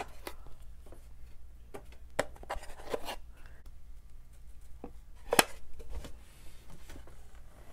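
Light taps and clicks of a puzzle piece being handled: lifted out of a small wooden puzzle box and set down on a clear plastic tray, with one sharper click about five seconds in.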